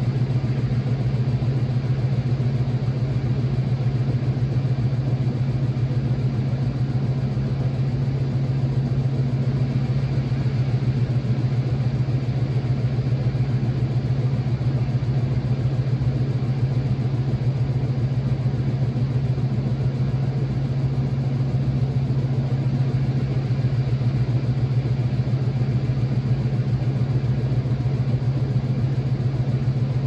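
2007 Whirlpool washing machine running through its permanent press cycle: a steady, unchanging motor hum over a bed of mechanical noise.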